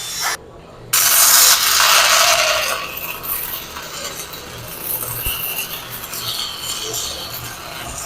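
Grinder working down a fresh weld on steel plate, a harsh, uneven rasping that is loudest just after a second in.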